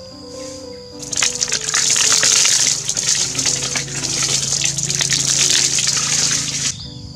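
Water poured in a stream into a round concrete tank, splashing onto the liquid inside; it starts about a second in and stops suddenly near the end. Background music plays underneath.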